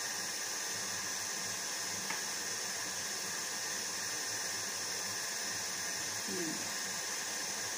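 KitchenAid stand mixer running steadily at about speed 6 while eggs are beaten into the butter and sugar, giving an even, unchanging hiss.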